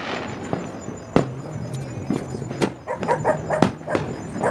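A dog barking and yipping in quick short bursts through the second half, among sharp bangs of fireworks going off.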